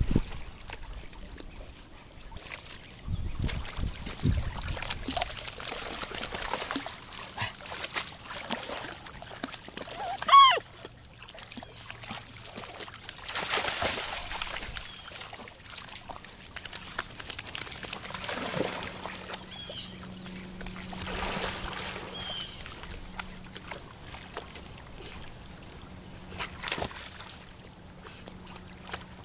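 Water sloshing and splashing as Labrador puppies paddle and swim through a shallow pond. About ten seconds in comes a short, high cry, the loudest sound.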